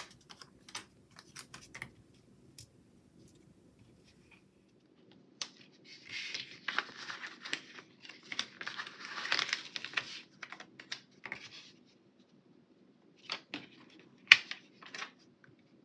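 Paper planner stickers handled by hand: light clicks and fingernail taps, then a longer rustling, tearing stretch as a sticker is peeled off its backing sheet. Near the end come a few sharp taps as a sticker is pressed down onto the page.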